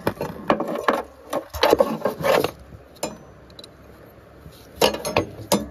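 Spanner clicking, knocking and scraping on the starter motor's 17 mm nut as it is worked loose: a run of short metallic knocks in the first couple of seconds, then another cluster near the end.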